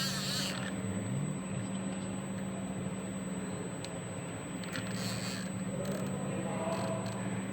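Steady low hum of a running machine with a thin high whine, and a few brief hissy noises about five seconds in.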